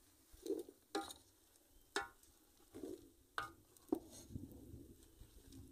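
Long wooden spoon stirring chunks of beef fat frying down into tallow in an aluminium pot, scraping and knocking against the pot about once a second, with the fat sizzling. The stirring keeps the fat from sticking and burning.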